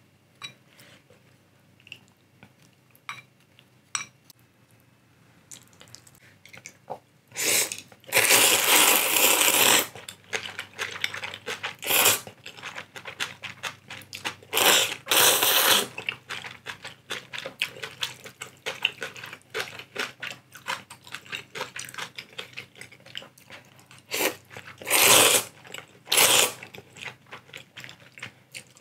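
Close-miked slurping of instant ramen noodles in several loud bursts, the longest about two seconds, with wet chewing between them. The first several seconds are quieter, with only faint clicks.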